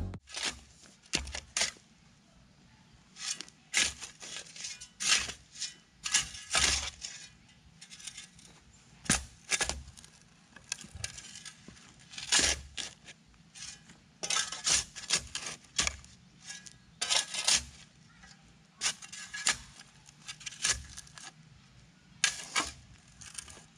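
Irregular short, sharp scrapes and clinks, like stone and metal knocking together, spaced unevenly with brief pauses between them.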